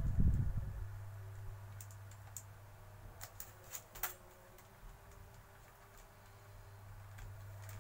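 Small scattered clicks and crinkles of a motorcycle head gasket in its plastic wrapping being handled against an aluminium cylinder head, after a dull thump at the start, over a low steady hum.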